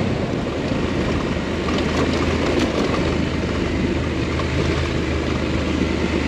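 KTM adventure motorcycle running steadily at cruising speed, its low engine drone under a rush of wind and riding noise.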